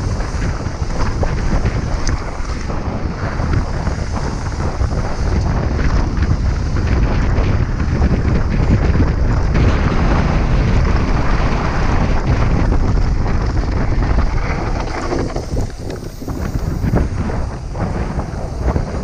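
Wind rushing over an action camera's microphone as a mountain bike rolls at speed down a gravel track, with the bike's tyres and frame rattling over the rough surface. It eases briefly near the end as the bike slows.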